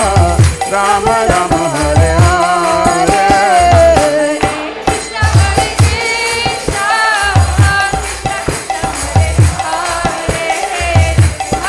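Devotional kirtan music: voices singing a wavering melody over low drum beats about once a second and jingling hand cymbals.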